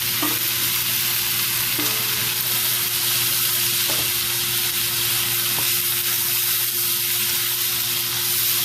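Carrots, peas, onions, beef, chicken and shrimp sizzling steadily in hot oil in a frying pan on high heat, with a few faint clicks through the steady hiss.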